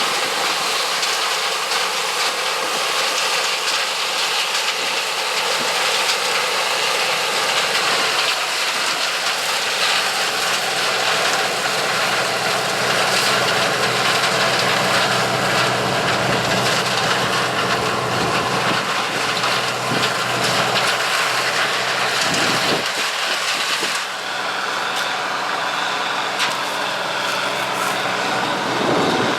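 1983 Gleaner L3 combine running steadily while harvesting corn: the steady note of its turbocharged six-cylinder Allis-Chalmers 670T diesel under a loud hiss from the machine's threshing and cleaning. The hiss thins a little about three-quarters of the way through.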